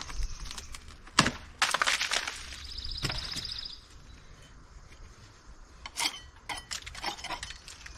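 Scattered sharp metallic clinks and knocks of hand tools on metal fittings, with a brief high ringing tone in the middle, as work starts on removing a bronze chainplate fastened to a wooden hull.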